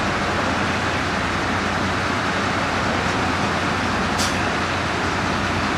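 An engine running steadily as a dense, even drone, with one light click about four seconds in.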